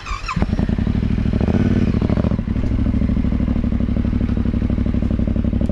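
Dirt bike engine firing up and running close by at a steady, rapid beat, swelling briefly about a second and a half in before settling back to idle.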